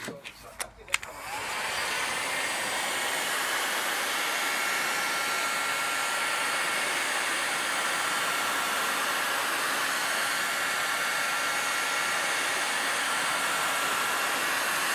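A Bosch hot-air gun is switched on after a few clicks and runs steadily, blowing hot air onto a steel crown wheel held in a vice. Its fan gives an even rush of air with a faint high whistle.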